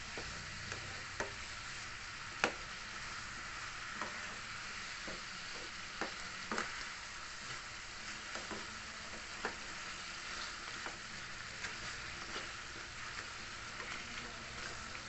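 Chicken in sweet-and-sour sauce sizzling steadily in a pan while a spatula stirs it, with irregular clicks and scrapes of the spatula against the pan; the sharpest click comes about two and a half seconds in.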